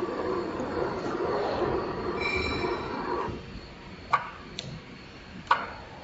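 Hot stamping machine running with a steady mechanical hum that stops a little past halfway. A few sharp clicks follow.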